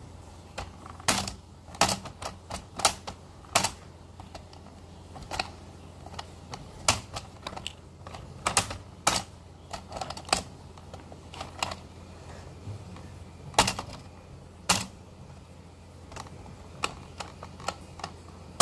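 Irregular sharp clicks and taps of hard plastic as a Hot Wheels Stunt and Splash Car Wash playset and its toy cars are handled, over a faint low hum.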